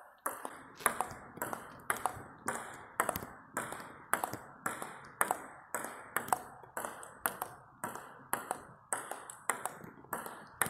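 Table tennis rally of backspin pushes: the ball clicks off the paddles and the table in a steady, even rhythm, about two contacts a second.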